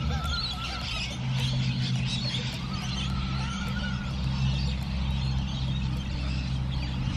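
Many birds calling and chattering at a crowded roost of waterbirds, with a few wavering whistled calls, over a steady low hum.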